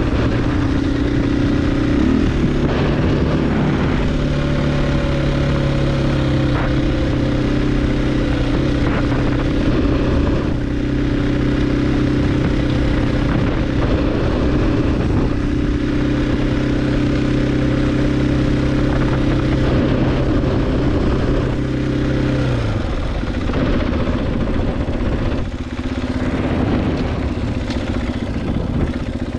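2023 KTM 500 EXC-F dirt bike's single-cylinder four-stroke engine running at a steady speed. About two-thirds of the way through, the engine note drops as the bike slows, then rises and falls unevenly.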